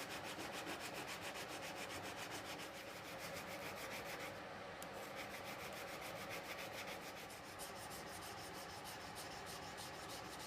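Steel chisel back rubbed back and forth on a coarse diamond sharpening stone in quick, even strokes, flattening a badly dished back. There is a short break about four seconds in.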